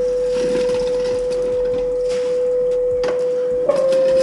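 Compressed air whistling out of a refrigerator's water dispenser as its water line is blown out for winterizing: one steady tone. Near the end there is a click, and the tone steps slightly higher and louder.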